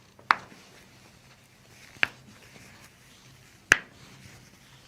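Three sharp, separate pops of toe joints being cracked during a chiropractic manipulation, about a second and a half to two seconds apart.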